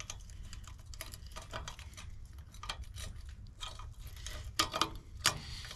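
Small steel trailer-coupler latch parts clicking and clinking as they are fitted by hand into the underside of a hitch tongue, with a few sharper clinks near the end.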